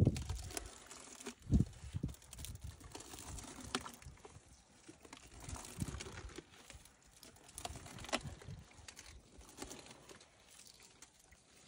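Elephant feeding on a branch: irregular crunching and crackling of twigs being chewed and broken, with a few sharp cracks and one low thud about one and a half seconds in.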